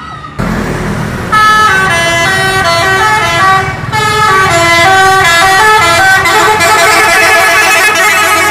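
Indonesian intercity bus horns playing quick multi-note tunes, the musical 'telolet' horn. Loud, with notes stepping up and down a few times a second, and a short break about four seconds in.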